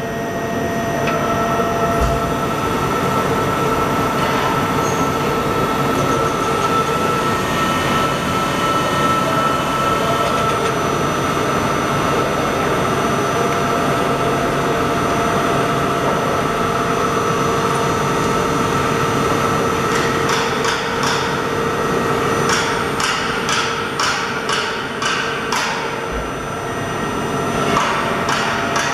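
Spinner TD 42 Triplex CNC turning centre running, its drives giving a steady mechanical hum with a whine. From about two-thirds of the way through there is a run of sharp clicks and knocks as its tool turret moves.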